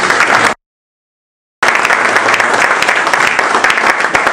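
Audience applauding, dense clapping throughout, broken about half a second in by roughly a second of dead silence where the sound drops out entirely.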